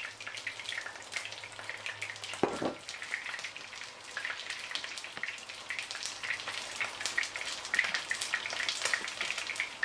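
Oil sizzling in a pan, with many small irregular crackles and pops.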